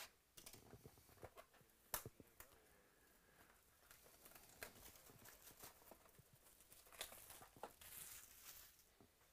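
Faint crinkling and tearing of plastic shrink wrap being cut and peeled off a cardboard trading-card box, with scattered light clicks and taps and a longer rustle near the end.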